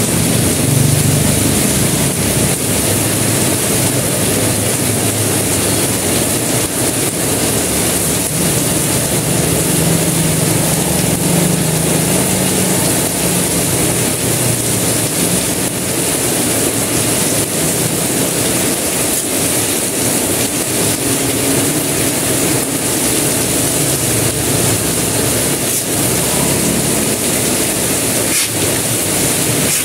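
Heavy tropical downpour: a loud, steady hiss of rain pelting the road and nearby roofs. A motorbike rides past through the rain near the start.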